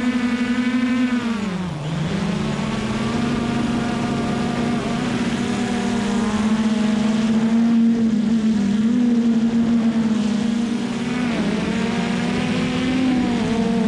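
Hubsan Zino Pro quadcopter's brushless motors and propellers whining steadily, heard from a GoPro mounted on top of the drone, close to the rotors. About two seconds in the pitch dips sharply as the motors slow, then climbs back and holds with small wavers as the drone slows down.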